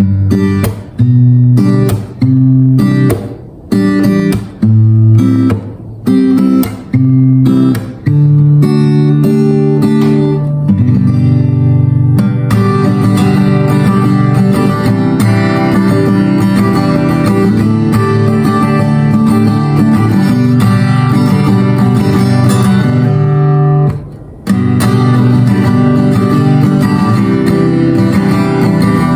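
Cort L100-O acoustic guitar with 12-gauge D'Addario strings being strummed: first about seven single chords, each left to ring and then stopped, then continuous strumming with one short break a little before the end.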